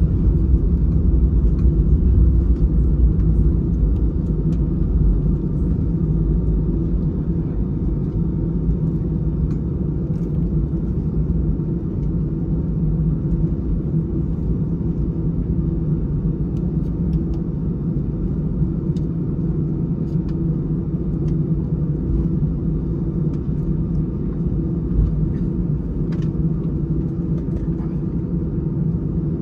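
Steady low rumble of an Airbus A319-111's CFM56 engines heard inside the passenger cabin, easing slightly after the first few seconds, with a few faint cabin rattles.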